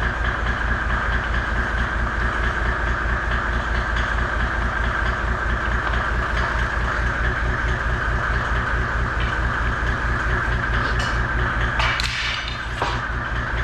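An engine idling steadily with an even, low pulse. About twelve seconds in, a short noisy burst cuts across it.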